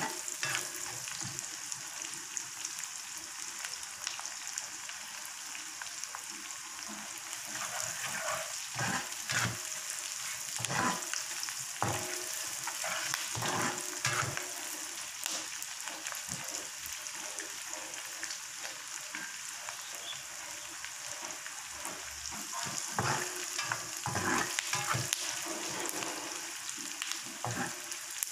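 Food sizzling steadily in hot oil in a pan. A spoon stirs it now and then, knocking and scraping against the pan, more often in the middle and near the end.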